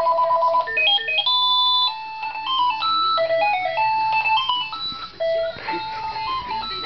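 House phone playing an electronic ringtone: a rapid two-note warbling trill, then a tune of short stepped beeps.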